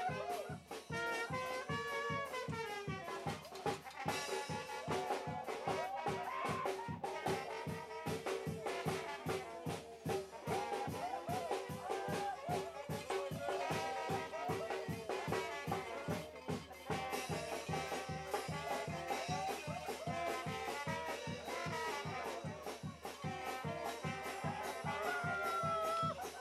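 Brass band music with a steady drum beat, playing for a street dance.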